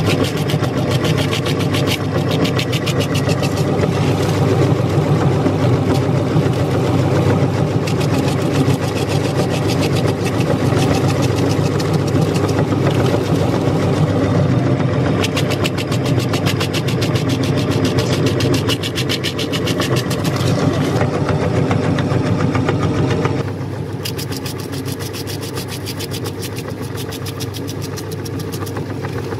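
Electric meat grinder running steadily while its auger crunches pieces of a hard cookie into crumbs, a motor hum under a dense crackling. The sound drops and thins about three-quarters of the way through.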